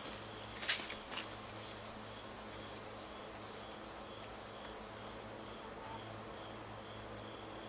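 Steady outdoor insect chorus: a continuous high trill with a fainter chirp repeating about two or three times a second. Two sharp clicks just under a second in, the first the loudest sound.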